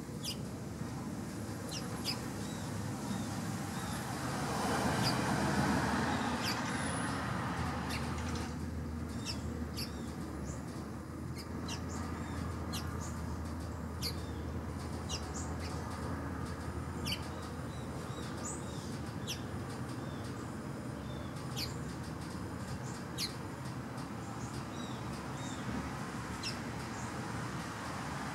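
Birds giving many short, high chirps every second or so, over a steady low rumble, with a louder rushing swell about five seconds in.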